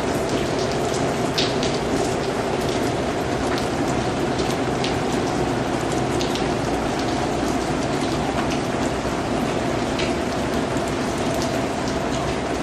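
Steady rain falling: a dense, even hiss of rain with sharp individual drops ticking out here and there.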